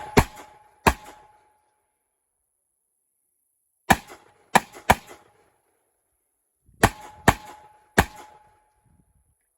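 Gunshots fired in quick strings: two shots right at the start, three about four seconds in, and three more about seven seconds in. Each shot is a sharp crack with a short echoing tail.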